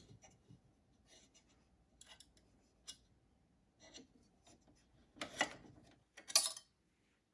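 Quiet handling sounds of a knit fabric strip being worked through a serger's metal bias binder attachment with a small screwdriver: faint rustling and scraping, with two louder rustles a little past halfway.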